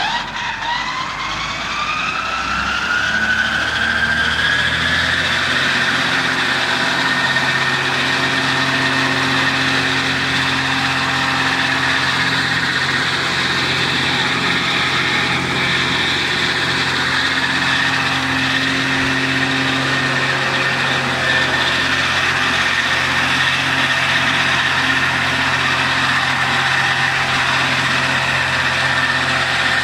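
Vicon trailed disc mower running off a tractor's PTO. The cutterbar discs spin up with a whine that rises in pitch over the first few seconds, then run at a steady high whine over the tractor engine's steady drone.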